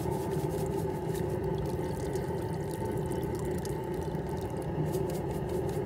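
Garden hose running water into a partly filled metal crawfish boiler pot, a steady rush and splash of water churning in the pot.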